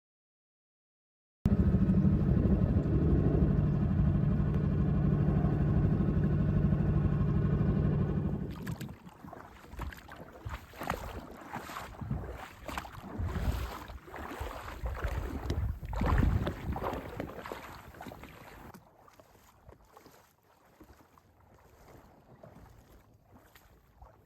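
Small boat motor, likely a dinghy outboard, running steadily for about seven seconds and then stopping. After it come irregular knocks and splashes that fade down near the end.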